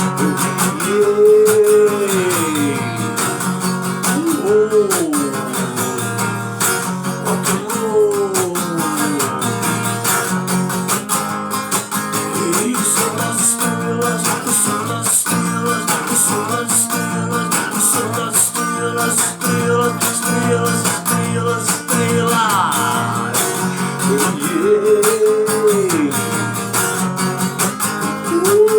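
Rock band playing a guitar-led instrumental passage of a song, with a melody line that repeatedly bends up and falls back over a steady accompaniment.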